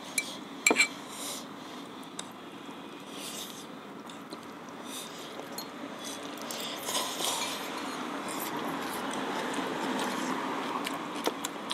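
Close-up eating sounds: spicy noodles slurped and chewed, with a couple of sharp clinks of metal forks against the pan near the start.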